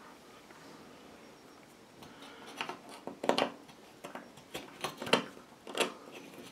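A screwdriver loosening the mounting screws of an old ceiling light fixture's metal base. About two seconds in, it begins a string of light, irregular metal clicks and scrapes.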